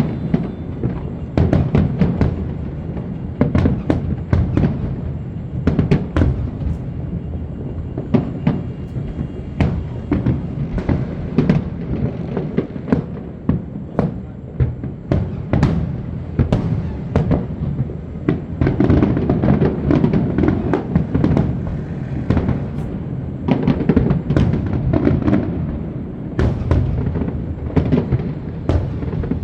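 Aerial fireworks display going off: rapid, irregular bangs and crackles, often overlapping, over a continuous low rumble of bursts.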